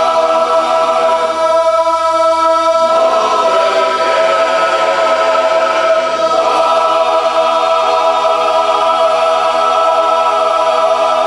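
Barbershop chorus singing a cappella in close harmony, holding long sustained chords. It moves through two chord changes in the first half, then holds a final chord to the end of the song.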